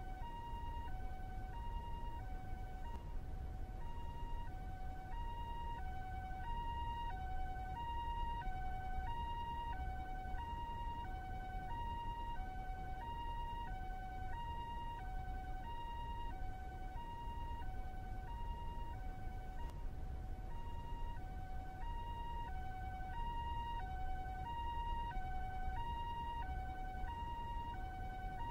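Japanese ambulance two-tone siren alternating evenly between a high and a low note, about one high-low cycle every 1.2 seconds, over a low steady rumble.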